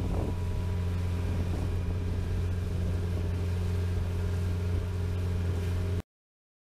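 Motorboat engine running steadily at cruising speed, a constant hum under a rushing hiss of wind and water. It cuts off abruptly about six seconds in.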